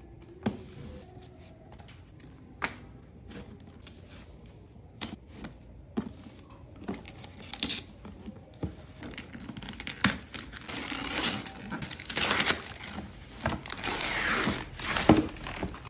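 Gift wrapping paper being torn and crinkled off a box, with scattered clicks and taps at first, then louder, denser tearing and rustling in the second half.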